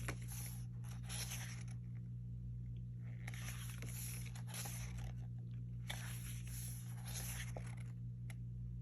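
Paper rustling and sliding as the glossy pages of an album photobook are handled and turned, in several swells of a second or two, over a steady low hum.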